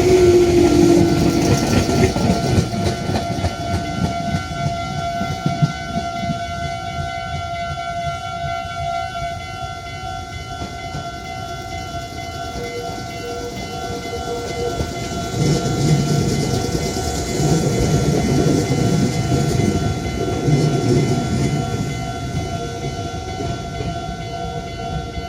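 Train running through a Japanese level crossing, wheels rumbling and clattering over the rails. The crossing's warning bells ring steadily throughout. The rumble eases off past the middle and swells again in the second half.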